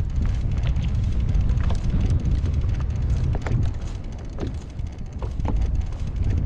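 Strong wind buffeting the microphone, a heavy, steady low rumble, with scattered short ticks and splashes above it.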